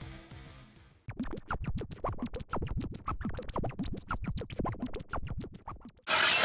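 Electronic transformation sound of the DX Fifteen Lockseed toy, made of sound effects only: a fast, stuttering run of scratch-like clicks and blips, then a loud burst of noise about six seconds in.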